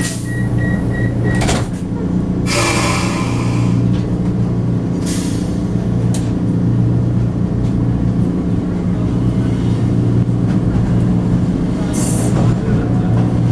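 Vienna U-Bahn train pulling out of a station: the high door-warning beeps stop about a second and a half in with a knock as the doors shut, then a loud hiss of air. Over a steady low hum from the train's motors, shorter hisses come twice more as it picks up speed.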